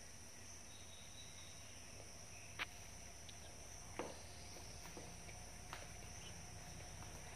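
Two pet rabbits shifting and nibbling in grass inside a plastic basket: faint, with a few soft clicks and rustles, two sharper ticks about two and a half and four seconds in, over a steady high-pitched whine.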